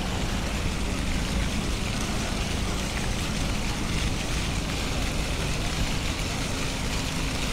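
Steady outdoor city ambience: a constant rushing noise with a low rumble underneath.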